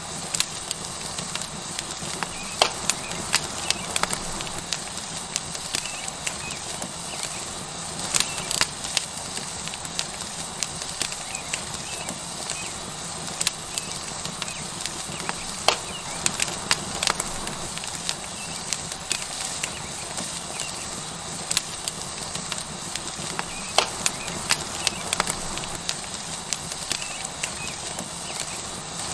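Tomahawk steak sizzling on a hot rock over a wood fire: a steady hiss with frequent sharp crackles and pops at uneven intervals.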